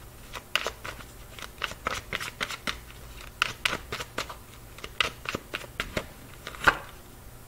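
Tarot deck being shuffled by hand: quick, irregular snaps and slaps of cards against cards, with one sharper snap near the end.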